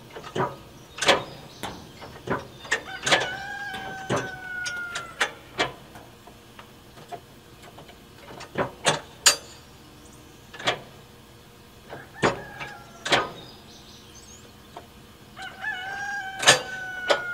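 Sharp metal clicks and clunks from a John Deere Z515E zero-turn mower's deck-height lift pedal and latch being worked, with the engine off. A rooster crows twice, about three seconds in and near the end, each call lasting about two seconds.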